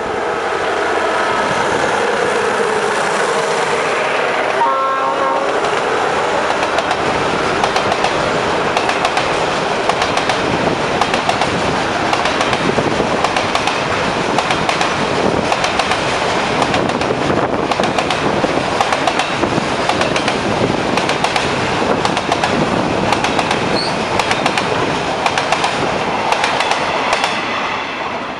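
Diesel-hauled container freight train passing close by: the locomotive's engine drops in pitch as it goes past, a short horn note sounds about five seconds in, then the wagons roll by with a steady rumble and rapid clickety-clack of wheels over rail joints, fading near the end.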